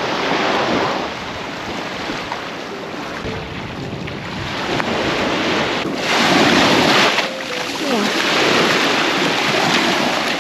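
Small waves washing up and draining back over a sandy beach, with wind buffeting the microphone. The surf swells louder about six seconds in.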